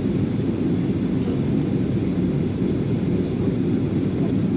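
Steady cabin noise of a jet airliner in cruise: an even, low rumble of engines and rushing air that does not change.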